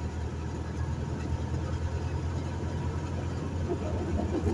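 Steady low rumble of a vehicle driving along a paved road: engine and tyre noise heard from inside the moving vehicle.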